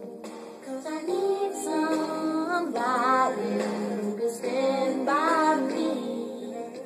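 Girls' voices singing a slow R&B ballad, with long held notes that waver.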